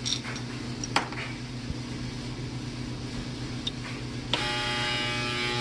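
A few light clicks of small metal parts being handled on a bench, then about four seconds in a steady electric buzzing hum starts abruptly and holds an even pitch.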